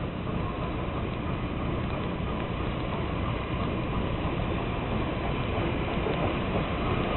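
Southern Pacific 4449, a 4-8-4 steam locomotive, approaching with its train: a steady, even rumble that grows slightly louder as it comes closer.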